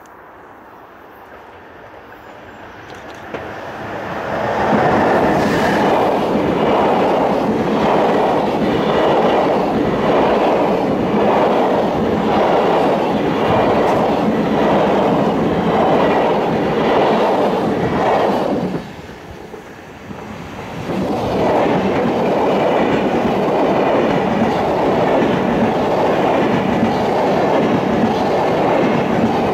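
A locomotive-hauled passenger train, led by a red electric locomotive, approaches and passes at speed close to the track. Its wheels click over the rail at an even rhythm. After a short drop about two-thirds of the way through, a double-deck passenger train passes just as close.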